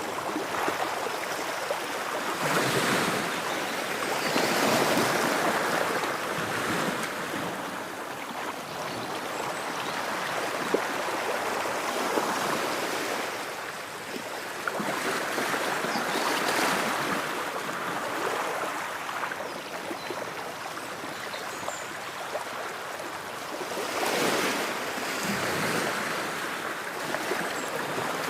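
Ocean waves washing in and running back, the surf swelling louder every ten seconds or so over a steady background wash.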